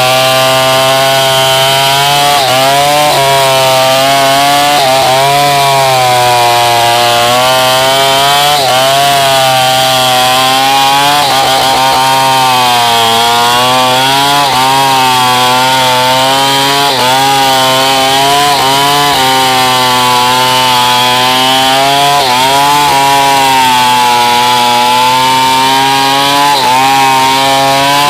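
Stihl 070 two-stroke chainsaw cutting hardwood under load, its engine pitch dipping and recovering again and again as the chain bites into the wood.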